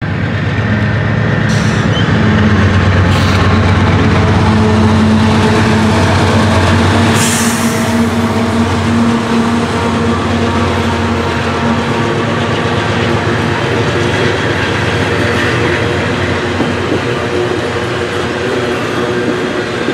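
Canadian Pacific GE AC4400CW diesel locomotives working under power as a departing freight train crosses a steel girder bridge. Their deep engine drone is loudest over the first several seconds, then gives way to the steady rumble and rattle of tank cars rolling across the bridge.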